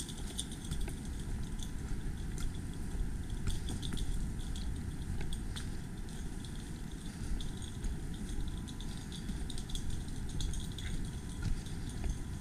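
Low, fluttering rumble of wind on the microphone, with scattered light crackles and ticks from a hiker moving over the trail.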